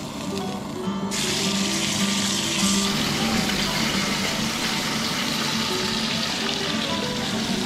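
Bone-in ribeye sizzling in oil in a cast-iron skillet on a camp stove; the sizzle starts suddenly about a second in, as the steak is flipped onto its unseared side, and then keeps going strongly.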